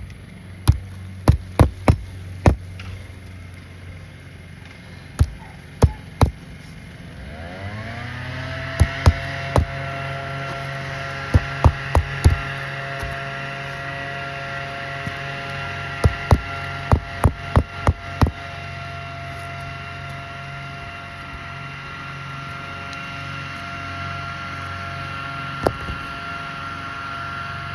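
Hammer strikes on the roof in quick groups of three to six blows. About seven seconds in, a motor starts, rising briefly in pitch, then runs with a steady hum.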